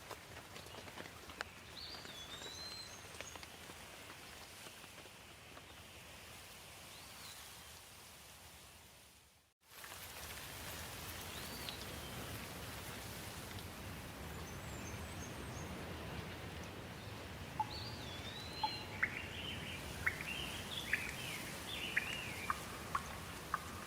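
Steady rain with birds chirping through it. About nine and a half seconds in the sound fades out briefly and comes back, after which the rain is a little louder, with sharp drip taps and more frequent bird calls in the second half.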